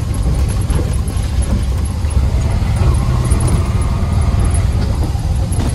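Riding in an auto-rickshaw: steady engine rumble and road noise.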